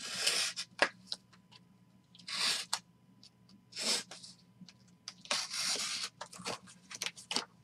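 Trading-card packaging being torn open by hand: four short ripping, rustling tears, the last and longest a little past the middle, with small clicks and handling sounds between them.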